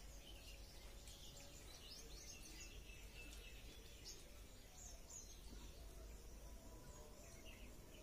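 Faint, high, thin bird chirps, many short ones in quick succession, over a low steady background hum.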